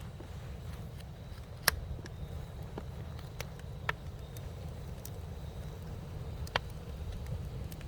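Wood campfire burning: a steady low rumble with scattered sharp pops and ticks, three of them louder, the loudest a little under two seconds in.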